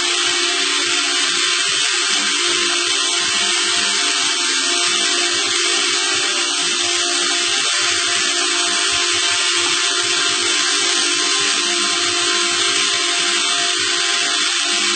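Steady mechanical whirring with a constant hum and hiss, like a motor-driven machine running without a break.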